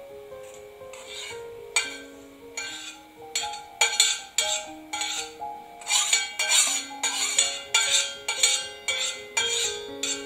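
Metal spoon scraping and clinking against a small stainless-steel tempering pan as the tempering is knocked out into a bowl. The clinks come about twice a second, growing busier about six seconds in. Gentle background music plays under it.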